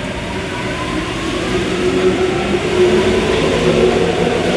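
Rubber-tyred MP14 metro train running in a tunnel. Its running noise and motor hum grow steadily louder over the few seconds, with a faint rising whine in the first second.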